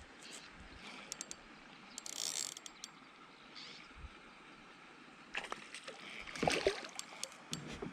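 Fishing reel and tackle handling as a hooked bass is reeled in and landed: scattered mechanical clicks and rattles, a short hiss about two seconds in, and a busier run of clicks and knocks in the second half.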